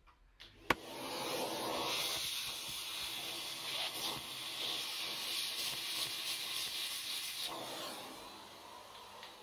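After a sharp click, a small vacuum nozzle held against an AirPod's speaker mesh gives a steady rushing hiss of sucked air for about seven seconds, then tails off near the end. It is drawing out the debris just loosened from the mesh.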